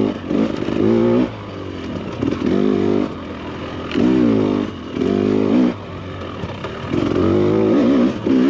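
2024 Husqvarna TE300 Pro's throttle-body-injected two-stroke engine under riding load. It revs up in about five short bursts, the pitch rising and falling with each twist of the throttle, and drops back between them.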